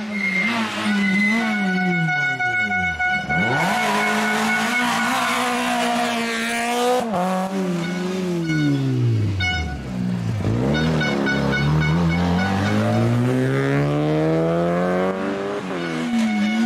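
Rally car engines at full throttle on a tarmac stage, the pitch climbing hard and then dropping sharply again and again with each gear change and lift-off. A steady high-pitched tone runs underneath for much of the time.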